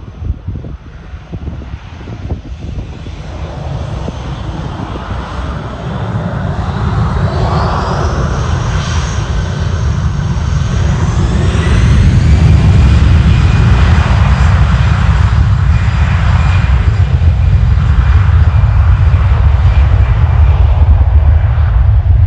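Aircraft engines building from a distant rumble to a loud, steady roar about halfway through, with high whining tones that slide in pitch as the aircraft passes close.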